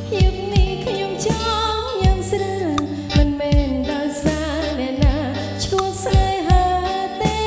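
Live band playing a Khmer song, with a woman singing the melody into a microphone over electric bass and a drum kit. Regular kick-drum thuds and cymbal hits run under the voice.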